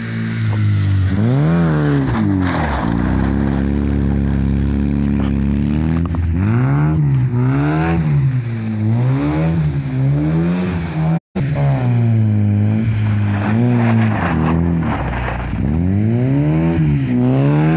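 Ford Sierra's engine revved hard, its pitch swinging up and down again and again as the car drifts sideways on snow, with a few seconds of steady high revs early in the drift. The sound drops out for a moment about eleven seconds in.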